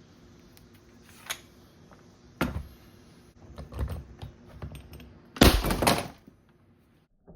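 Hard metal clicks, clacks and knocks of a powder-actuated nailer and padlock being handled and set up, with a loud knock about two and a half seconds in and the loudest rattling clatter near the end.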